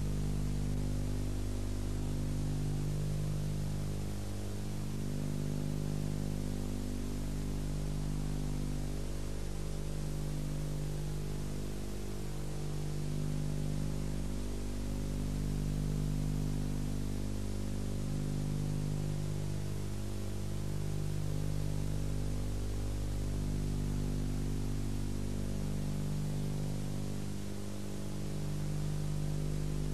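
Steady low electrical hum with a constant hiss over it, the hum's upper tones dipping briefly every two to three seconds: the noise of an old videotape transfer with no live sound.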